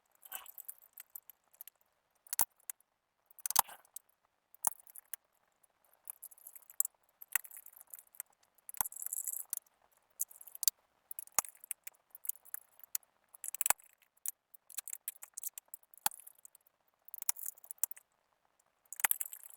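Scattered small clicks, taps and light rattles of laptop case parts and screws being handled and fitted back together, with short scratchy scraping sounds between them.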